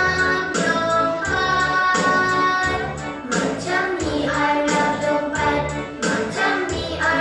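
Upbeat children's song playing: a sung melody over a steady bass beat.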